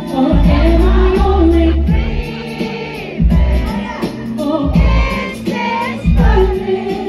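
Live pop ballad over a loud PA: a woman singing a held, sustained melody over a band with heavy, pulsing bass.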